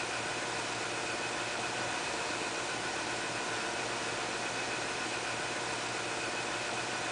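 Steady, unchanging hum and hiss of a running machine, with a few faint fixed tones in it.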